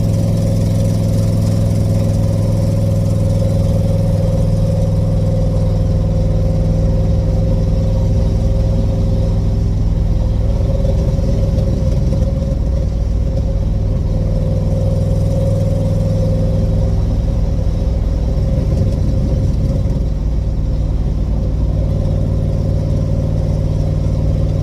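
Vehicle engine running steadily at idle, through an exhaust leak that the owner means to fix.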